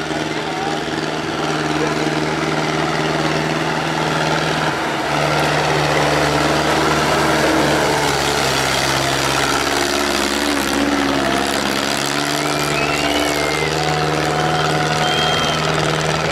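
Small vintage tractor engine running at a steady speed under load, with its pitch changing abruptly twice.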